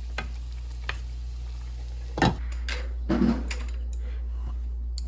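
Dishes and utensils clinking and knocking on a table: scattered light clicks, with a louder knock a little after two seconds in and a short cluster of knocks about a second later, over a steady low hum.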